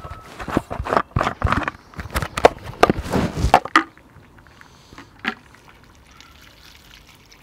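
Water poured from a plastic canister into a cast-iron pot of simmering stew: it glugs and splashes unevenly for about the first three and a half seconds, then falls to a faint trickle. There is one short clink a little after five seconds.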